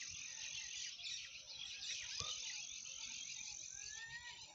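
Faint, steady sizzling of bay leaves and whole spices frying in hot oil in a large iron kadhai, with a single soft knock about two seconds in.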